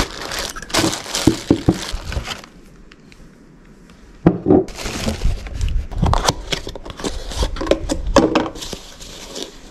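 Plastic packaging crinkling and rustling as car parts are unwrapped, then, after a short lull, scattered clicks and knocks of metal parts (idler pulleys, tensioner, water pump) being handled and set down on a plywood bench.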